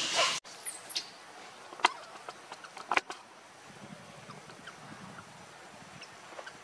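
A macaque's loud, high-pitched screaming that cuts off abruptly less than half a second in. After it come faint background noise and a few sharp clicks or snaps.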